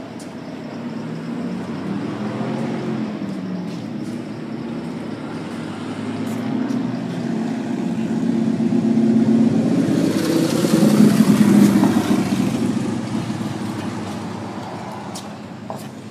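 A motor vehicle's engine grows steadily louder, peaks about two-thirds of the way through with a rush of road noise, then fades away, like a vehicle passing close by.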